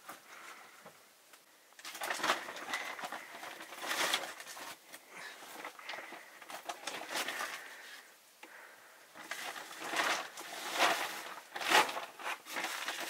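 Irregular rustling and crunching with small clicks and knocks, starting about two seconds in, like things being handled.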